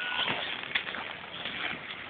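Bustle of a crowd moving about on packed snow: a steady noisy hiss with scattered knocks and clacks of ski boots and skis, the sharpest one about a second in. A short high beep cuts off just at the start.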